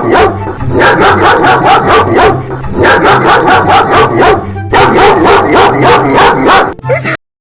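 A dog barking fast and loud, rapid barks about five a second in runs of a second or two with short breaks, cutting off abruptly near the end.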